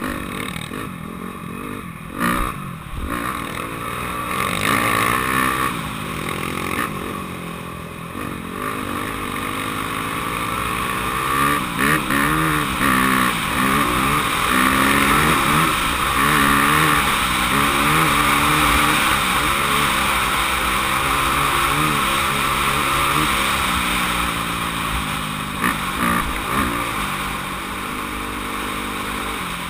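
Dirt bike engine running on a trail, its pitch rising and falling again and again as it is revved and eased off, with steady wind rush on the microphone and a few sharp knocks.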